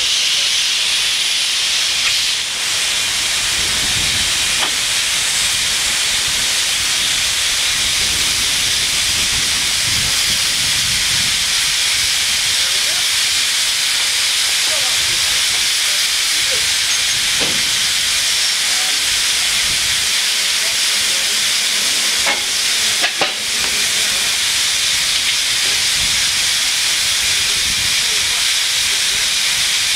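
Narrow-gauge steam locomotive letting off steam: a loud, steady hiss throughout, with a brief dip about two and a half seconds in and a couple of short clicks a little past the three-quarter mark.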